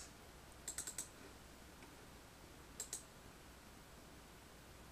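A few faint clicks at a computer, from its keys or mouse buttons: a quick run of four about three-quarters of a second in and two more near three seconds, over a low steady hum.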